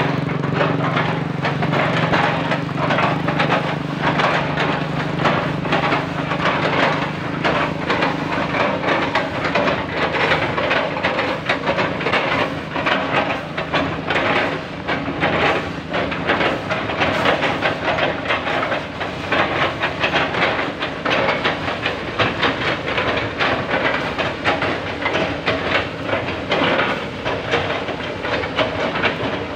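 Doosan crawler excavators chipping felled oil palm trunks: a dense, irregular crunching and clattering as the buckets chop the fibrous trunks, with the excavators' diesel engines running. A steady engine drone is strong at first and fades over the first several seconds.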